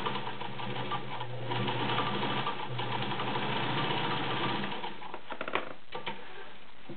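Vintage White 764 sewing machine stitching, its electric motor running steadily, then stopping about four and a half seconds in. A few light clicks follow.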